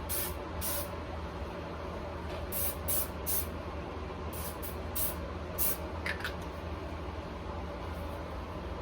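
Scented room spray being sprayed in about ten short hissing puffs, grouped in quick clusters.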